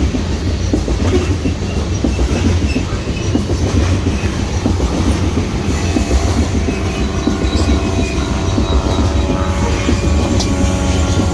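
Loaded coal hopper cars of a freight train rolling past, with a heavy steady rumble and rapid clacking of wheels over the rail joints. A faint, steady, high wheel squeal joins in about six seconds in.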